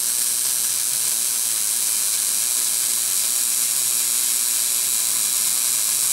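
Arc noise from a small 110-volt wire-feed welder laying a weld bead on a steel bumper bracket: a steady hiss that runs on without a break. This is the first pass at a lower heat setting, before the heat is turned up.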